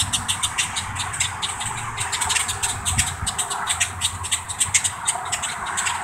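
A flock of grackles giving sharp, rapid, overlapping chack calls, a steady stream of clicks, the agitated calling of birds mobbing a person. Under them runs a steady low hum of highway traffic.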